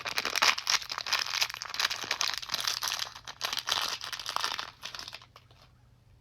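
Crinkling and rustling of the wrapping as a small advent-calendar toy figure is unwrapped, with many small sharp crackles, stopping about a second before the end.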